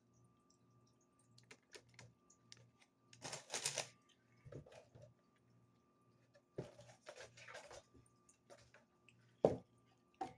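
Food packaging being handled: paper and plastic rustling in two short bursts, with scattered light clicks and one sharper click near the end.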